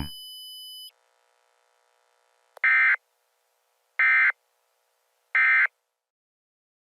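Three short, buzzy bursts of Emergency Alert System digital data, the SAME end-of-message code, each about a third of a second long and about a second and a half apart, signalling that the alert message is over. A faint steady tone stops about a second before them.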